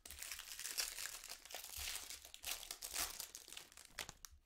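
Foil wrappers of trading-card packs crinkling and rustling as they are handled, a dense crackle that stops just before the end.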